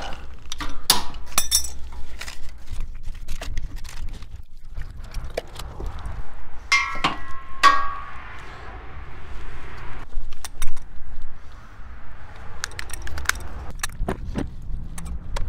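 Metal clinking and knocking of brass propane fittings, the regulator and a wrench being handled, with a couple of ringing metallic clinks about seven seconds in. A steady low rumble of road traffic runs underneath.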